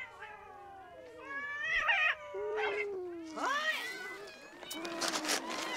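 A crowd of cats meowing at once as they clamour around someone handing out food, with overlapping calls that rise and fall. About halfway through there is one long call sliding down in pitch, and a few sharp clicks come near the end.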